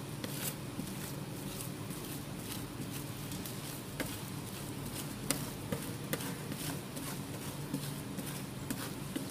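Metal spatula scraping and tapping on a frozen steel plate as it spreads ice cream mixture thin, with sharp clicks now and then over a steady low hum.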